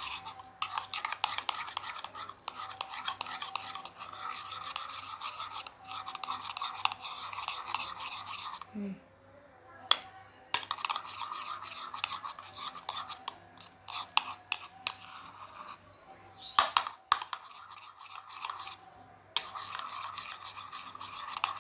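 Spoon stirring and scraping a slime mixture around a bowl in rapid strokes, stopping briefly twice.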